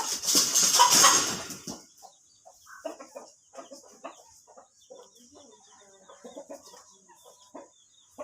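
A loud noisy rush for the first two seconds or so, then hens clucking in short scattered calls.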